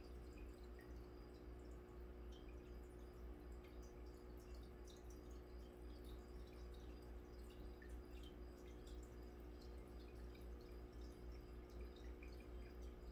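Faint aquarium water sounds: small air bubbles popping and dripping at the water surface in a quick irregular patter, over a low steady hum.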